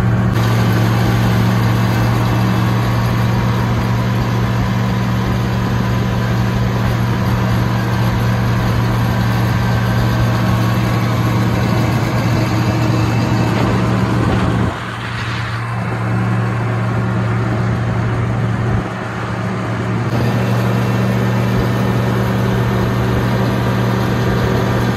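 Oliver 1750 tractor engine running steadily at road speed, heard from the seat, with a constant low hum. About halfway through the engine note drops for a few seconds, then comes back up to the same steady pitch.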